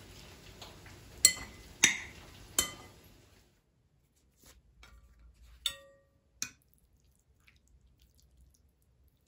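Kitchenware clinking: three sharp clinks in quick succession over a faint steady hiss that stops about three seconds in, then two more clinks about six seconds in, the first with a short ringing tone.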